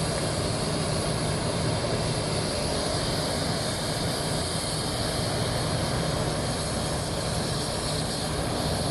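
Boeing 737 jet engines running steadily, a constant, even rush with a low hum underneath.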